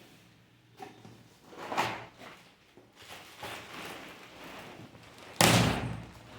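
A cardboard shipping box being opened and handled, with scraping and rustling. There is one loud, sudden noise about five seconds in.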